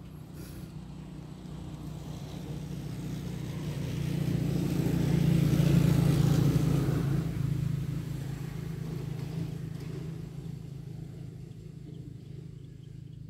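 A motor vehicle passing by: a low engine hum that grows louder to a peak about halfway through, then fades away.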